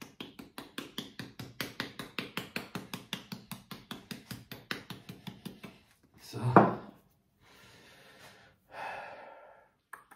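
Spice shaker of paprika shaken rapidly over raw pork steaks in a metal roasting pan, six or seven quick rattling shakes a second that stop about six seconds in. Then one loud thump, and a short breathy sound near the end.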